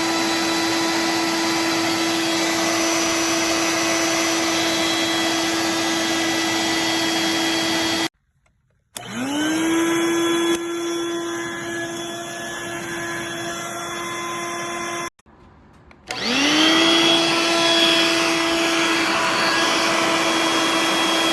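Vacuum cleaner motor running with a steady whine and airflow hiss. It cuts off abruptly twice and starts again each time, spinning up within about half a second to the same steady pitch.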